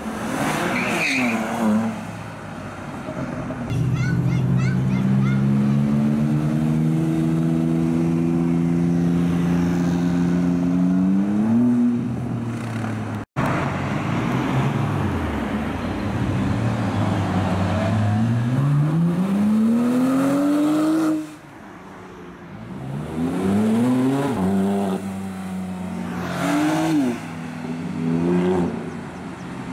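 Sports cars accelerating away one after another, among them a BMW M2 and a white Porsche 911. Each engine holds a steady note, then climbs in pitch as the car pulls away, and there are several short rising revs near the end.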